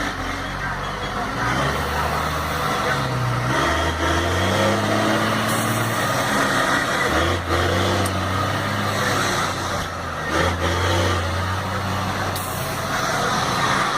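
Truck engine with a straight-through 'diretão' exhaust rumbling, revving up and down several times. Short hisses of air about five and twelve seconds in.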